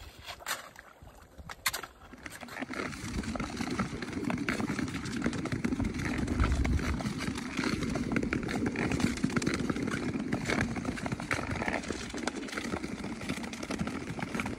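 Ice skates gliding and scraping on clear black lake ice, a steady rough hiss that builds from about two seconds in as the skating gets going. A few sharp clicks of ski-pole tips and blades striking the ice near the start.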